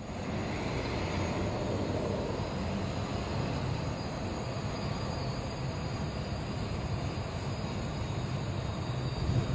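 Steady mechanical running noise with a low hum, unbroken throughout.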